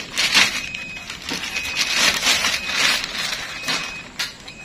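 Clear plastic bag crinkling and rustling as an audio mixer is pulled out of its wrapping, with a sharp click near the end.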